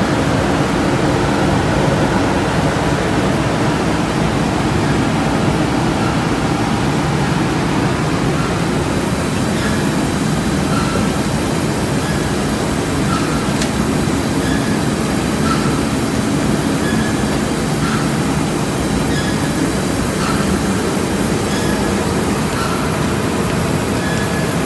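Laader Berg MaxFoam continuous foam-production line running: a loud, steady machine noise, with faint short squeaks now and then in the second half.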